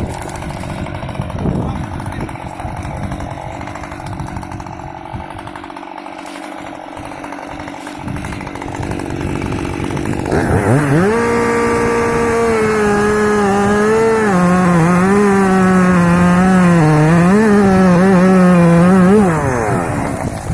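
Husqvarna 550XP Mark II two-stroke chainsaw with a 50 cm bar: about ten seconds of lower, rough running, then the engine revs up sharply about halfway in and runs at high speed for about nine seconds, its pitch wavering up and down, before dropping back near the end.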